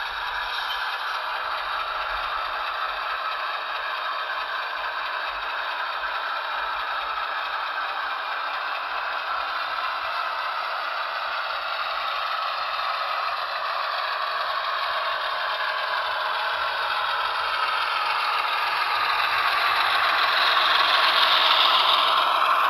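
HO-scale GE ES44AC model locomotive running under its Soundtraxx Tsunami sound decoder, playing diesel engine sound along with the rattle of the model rolling on the track. It grows steadily louder as the locomotive approaches and comes up close near the end.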